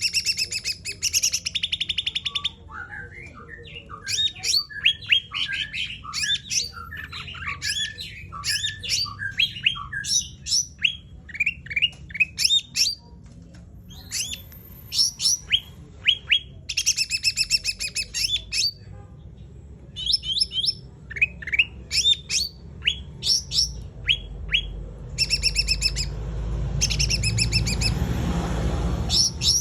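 A cucak rante songbird singing continuously in rapid-fire bursts: quick runs of sharp, falling chirps alternate with short dense trills. A low rumble rises underneath over the last few seconds.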